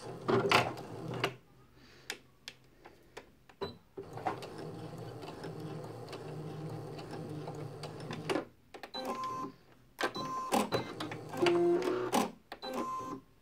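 Brother Innov-is NV2600 computerised sewing machine running in fits: a burst and some clicks, about four seconds of steady running, then it stops and restarts in several short, uneven spurts, with short high tones in between. The machine keeps cutting out and won't sew properly, a fault the owner can't identify.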